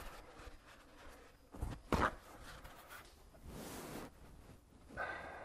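Paper towels rustling and being smoothed out by hand on a concrete floor, with one short, sharp noise about two seconds in.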